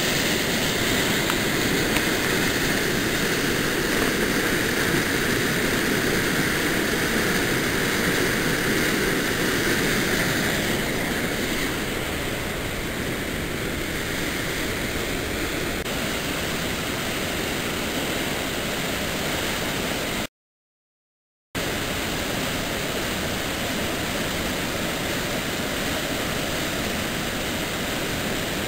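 Steady rush of a swollen waterfall, muddy whitewater pouring through a narrow rock gorge. The sound cuts out completely for about a second around two-thirds of the way through.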